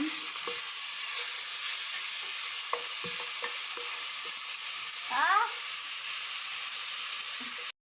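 Ginger-garlic-green chilli paste sizzling in hot oil in a pan while it is stirred, with a few light knocks of the spoon on the pan. The frying is cut off suddenly near the end.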